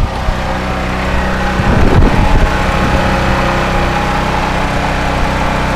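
Durostar DS4000S portable generator's 7 hp gasoline engine running steadily and pretty loud, under a light load of a refrigerator and a small light, with a steady whine over its low hum.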